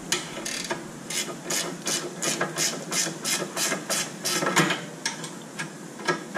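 Hand ratchet clicking, about three clicks a second, as it tightens a nut onto a newly fitted lower ball joint's stud.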